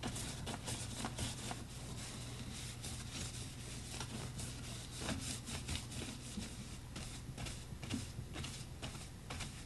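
Irregular short scratchy strokes of an art tool rubbing across a paper journal page, over a steady low hum.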